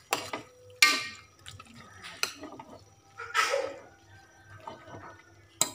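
Metal spatula stirring raw chicken pieces through wet spice paste in a stainless steel pot: a few sharp clinks of metal on the pot, the loudest about a second in, and a wet stirring swish midway.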